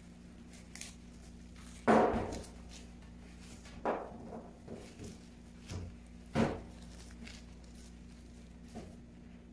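Jackfruit pieces and seeds being handled on a stainless-steel counter: three thuds about two seconds apart, the first loudest, with a few lighter knocks between them as gloved hands pull the fruit apart and set it down on the steel.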